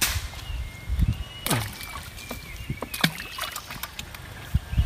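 Water splashing and sloshing in a plastic bucket as hands work in it, with a few sharp splashes and knocks about a second and a half apart.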